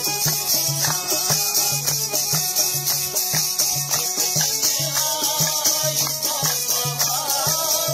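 Balti folk music played live: a harmonium carries the melody over a steady dholak drum beat, with hand clapping, and a man singing more clearly in the second half.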